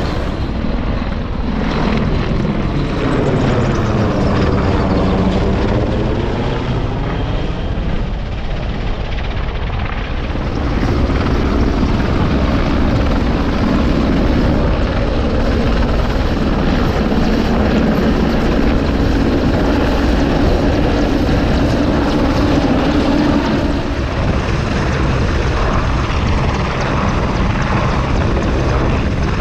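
A low-flying military aircraft passes overhead, its engine drone sweeping in pitch as it goes by and then holding steady, under strong wind buffeting the microphone.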